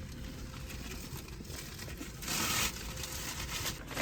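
Food wrapping and packaging crinkling and rustling as concession food is unwrapped, with one louder crinkle lasting about half a second a little past the middle.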